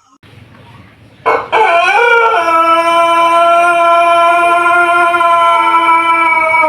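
Ayam Pelung rooster crowing one very long crow that starts about a second in: a quick upward swoop, then a long steady, drawn-out note that carries on past the end.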